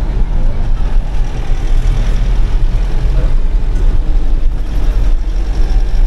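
Force Traveller diesel minibus under way: engine and road noise heard from inside the cabin as a steady, deep rumble.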